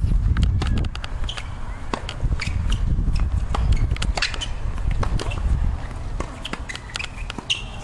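Tennis rally on a hard court: racket strikes and ball bounces heard as sharp knocks, with many smaller clicks between them. Wind rumbles on the microphone throughout, heaviest in the first second.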